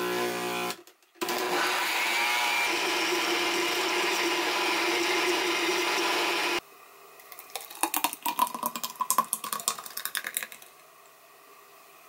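Royal Vale countertop blender blending chunks of apple and kiwi into juice. It gives a short burst, pauses briefly, then runs steadily for about five seconds and cuts off suddenly. After it stops come a few seconds of irregular clinks and knocks.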